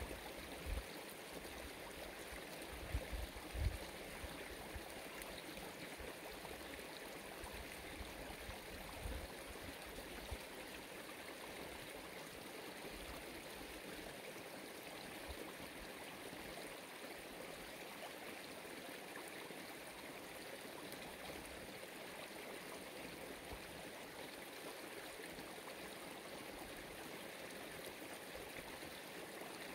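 Steady rushing noise of running water, with a few low thumps in the first four seconds.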